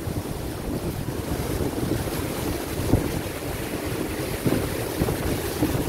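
Wind buffeting the microphone on the deck of the paddle steamer Neuchâtel under way, over the rush of water churned into its wake along the hull.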